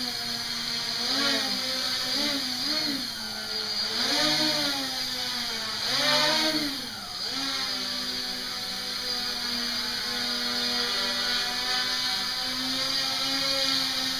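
Multirotor quadcopter's motors and propellers whining in flight, swelling up and down in pitch several times in the first half as the throttle changes, then holding a steady hum.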